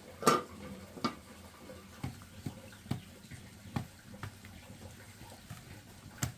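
A series of about eight irregular knocks and clatters, the loudest about a third of a second in, and another sharp one near the end.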